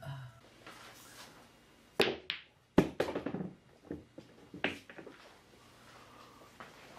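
A series of sharp knocks and taps, the loudest two about two and three seconds in, followed by a few lighter ones.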